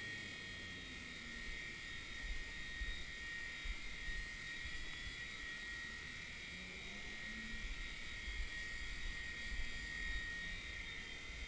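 WLtoys V911 micro RC helicopter's small electric motors and rotor whining steadily at a high, even pitch while it hovers, with occasional low thumps.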